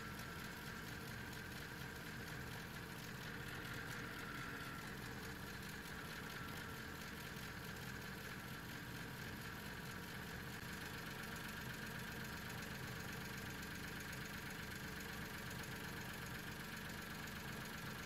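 Mitsubishi Minicab engine idling, faint and steady, heard from the driver's seat; the engine is low on power from a failing fuel pump.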